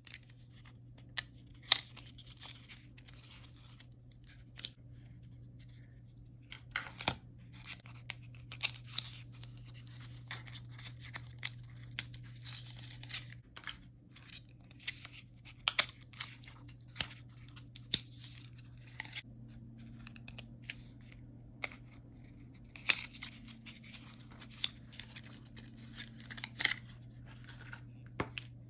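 Lipsticks being unboxed by hand: paperboard boxes rustling and scraping as they are opened and the cases slid out, with sharp clicks and taps as the lipstick cases are set down on the table. A steady low hum runs underneath.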